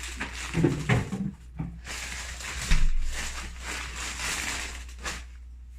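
Rustling and rummaging as food is handled and fetched out, with a few dull bumps about a second in and a sharper knock nearly three seconds in.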